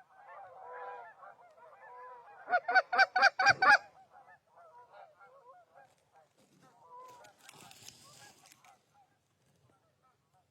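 Geese honking: many overlapping calls, with a close, loud run of about eight quick honks a little over two seconds in, then fainter scattered honks.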